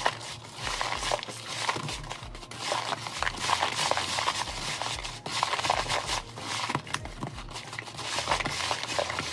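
Pecan halves being tossed by hand in a plastic mixing bowl to coat them in an egg-white and sugar mixture: a continuous irregular rustling and clicking of nuts knocking against each other and the bowl.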